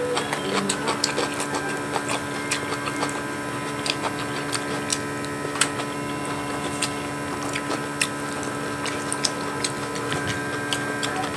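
A person eating with his fingers, chewing with scattered small mouth clicks and smacks, over a steady hum.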